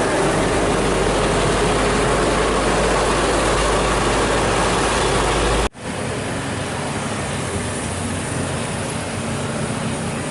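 Heavy vehicle engine and road noise, running steadily. A little past halfway it cuts off abruptly and gives way to similar, slightly quieter traffic noise.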